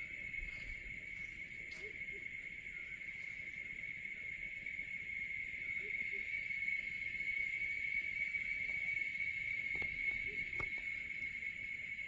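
Cicadas droning: a steady, unbroken high-pitched buzz from the treetops. A faint low double note sounds every few seconds beneath it.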